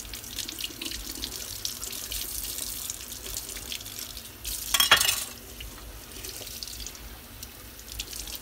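Faucet water running into a sink and splashing over a striped bass held under the stream, with small scraping clicks from a knife scaling the fish. About halfway through comes a brief, louder burst of splashing.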